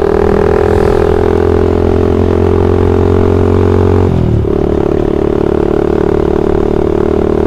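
Motorcycle engine running steadily while riding. About four seconds in, the engine note breaks briefly, then settles into a new steady note.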